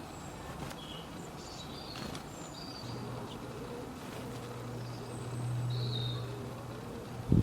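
A flying insect buzzing with a low steady hum that starts a few seconds in and swells, loudest about five to six seconds in, while small birds give short high chirps throughout.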